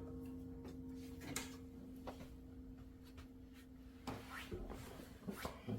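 The final note of a piano and acoustic guitar duet rings out and fades away. In the last two seconds come a few small clicks and knocks of handling.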